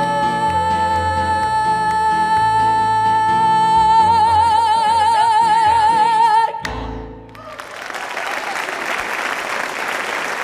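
A woman's voice holds a long, high final note over acoustic guitar and piano, its vibrato widening about four seconds in. The music stops sharply about six and a half seconds in, and applause follows.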